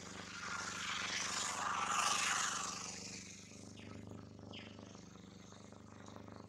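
A steady low engine hum, with a louder rush of noise that swells and fades over the first three seconds, as of a vehicle passing. Two brief rising squeaks follow near the middle.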